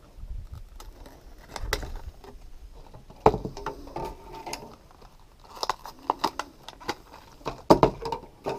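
Stiff clear plastic blister packs being handled and pulled open, giving irregular sharp clicks and crackling, with a few louder bursts a little over three seconds in and in the second half.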